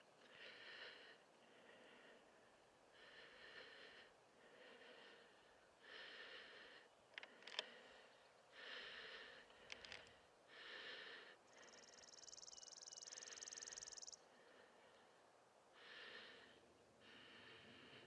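Faint heavy breathing of the camera operator, picked up close to the face by an external microphone: about ten breaths, one every second or two. About halfway through, a high dry trill lasts some two and a half seconds, and two sharp clicks come a little before it.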